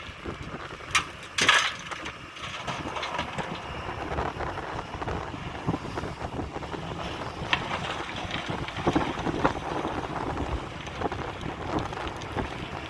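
Heavy excavator working, its engine running steadily under wind buffeting on the microphone, with a few sharp knocks as it loads material.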